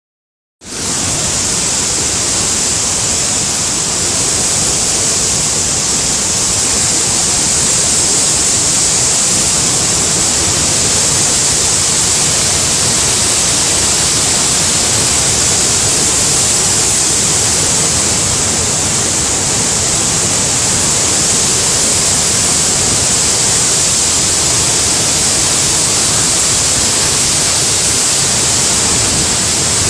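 Floodwater torrent rushing and churning down a rocky hillside: a loud, steady hiss of water and spray. It starts suddenly about half a second in.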